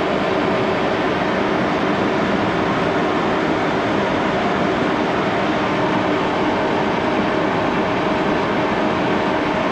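1941 Axelson 14x30 gearhead engine lathe running: a steady mechanical drone with a few faint steady tones.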